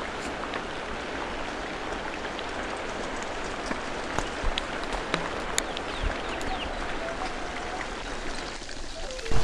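Forest stream rushing over rocks: a steady wash of flowing water, with scattered faint ticks and a short faint tone about seven seconds in. The rushing thins just before the end.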